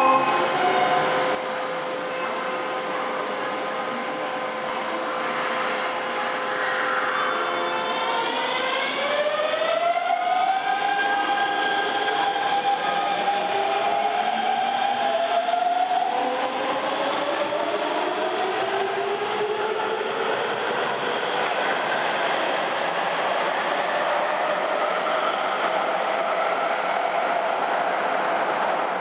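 Hanshin 5500 series train's GTO-thyristor VVVF inverter and traction motors accelerating away from a standstill: a whine of several tones starts climbing about six seconds in and rises in overlapping steps, then gives way to steady running noise as the cars pass and pull away.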